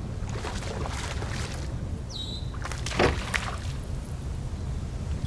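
Water splashing and sloshing at a small fishing boat, over a steady low rumble. The loudest splash comes about three seconds in, with a second one just after it, and a brief high descending chirp sounds about two seconds in.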